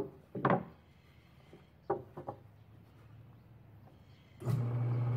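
A few light knocks as a curved plywood piece is set down on the sander's table. Then, about four and a half seconds in, the motor of a shop-built 32-inch drum sander switches on and runs with a steady hum.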